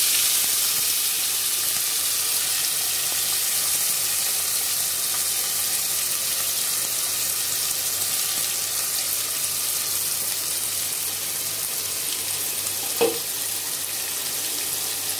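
Chopped onion frying in hot oil with whole spices in an aluminium pressure-cooker pan: a loud, steady sizzling hiss that eases a little as the onion starts to cook.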